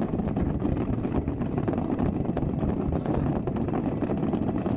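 Fireworks going off in a continuous dense barrage: many pops and bangs run together over a steady low rumble.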